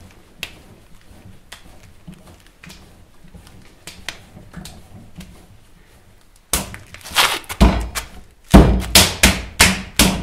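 Potter's hands working a large lump of clay on a wooden workbench: soft pressing and rubbing at first, then a quick run of heavy thuds about two-thirds in as the lump is knocked down onto the bench while it is wedged into a block.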